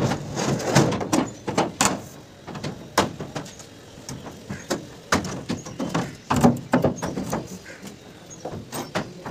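Irregular sharp knocks and clatter from roof formwork (centering) being put together, several hard impacts a second at times, denser about two-thirds of the way through.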